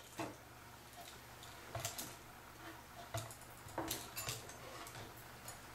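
Brass clock movement being set down by hand into its wooden case: a few scattered light knocks and clicks of metal against wood.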